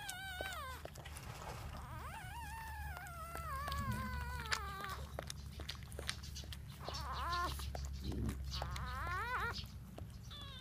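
Newborn puppies crying: several thin, wavering, bleat-like cries, a long falling one about two seconds in and a shorter rising one near the end.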